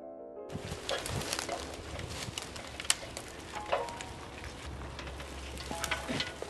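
Dry crackling and rustling with frequent sharp snaps, like dry twigs and leaves being handled, starting abruptly after the last notes of a piano piece in the first half-second.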